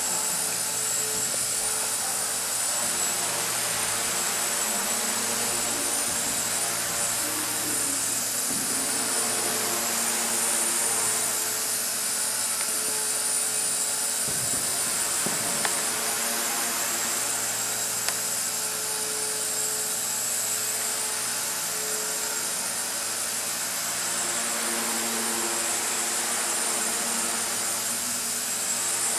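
Walkera 4G6S micro electric RC helicopter flying, its motor and rotors whining steadily, the pitch drifting a little as the throttle changes.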